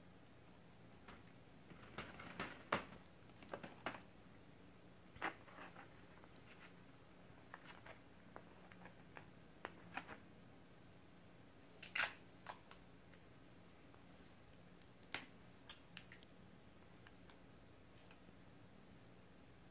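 Scattered short clicks and crinkles of hands handling a kite made from a plastic garbage bag, with its thin sticks and thread, over a faint steady low hum.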